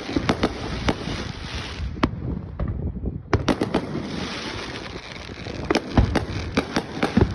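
Fireworks going off in rapid succession: sharp bangs and crackles. They ease briefly about two and a half seconds in, then come back as a dense run of bangs.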